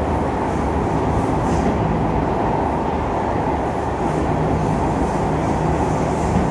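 An SMRT C151 metro train heard from inside the carriage while it runs between stations: a steady rumble of wheels on rail and the running gear, even throughout.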